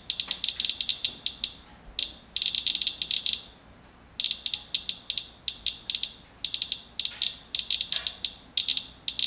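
Radalert Inspector Geiger counter chirping once for each detected count: rapid, irregular high-pitched clicks that bunch up and thin out at random, with a short lull about halfway through. The fast count rate is the sign of a strongly radioactive sample, reading about 0.18 mR/hr, which the owner puts at some 20 times background radiation.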